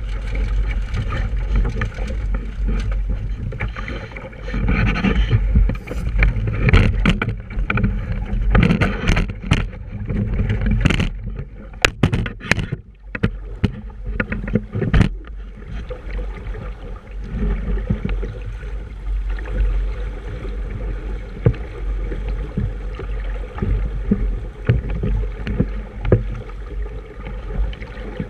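Small sailboat under way: water washing along the hull over a steady low rumble, with a run of sharp knocks and clatters through the middle part.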